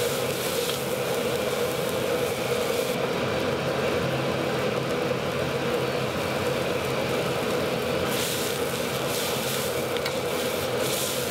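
Wok cooking in a restaurant kitchen: a steady rushing hum of kitchen equipment, with food sizzling in the wok for the first three seconds and again from about eight seconds in.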